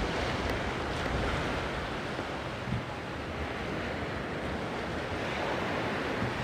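Sea surf washing onto a sandy beach in a steady rush, with some wind buffeting the microphone near the start.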